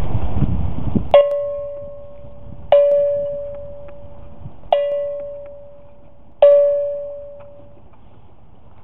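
A small bell struck four times at uneven intervals, each strike ringing one clear tone that dies away over a second or so. Before the first strike there is a wind rumble on the microphone.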